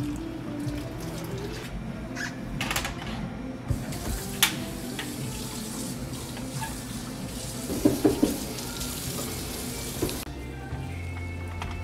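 Water pouring and running at a kitchen sink, with a few sharp clinks of stainless steel pots and utensils and a cluster of knocks about two-thirds of the way through. Soft background music plays underneath.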